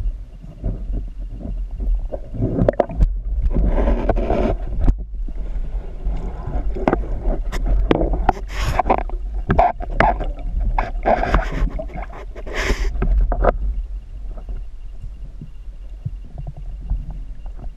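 Underwater recording with a steady low rumble on the camera housing, overlaid from about two seconds in to near the end by a busy run of knocks, scrapes and watery rushes as a speared fish is drawn in and handled on the speargun shaft and line.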